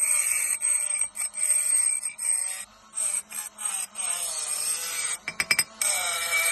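Small handheld rotary polishing tool running with a high whine that wavers in pitch as it scrapes caked ash from inside a pellet burner's igniter tube. It briefly drops out twice, with a few sharp clicks near the end.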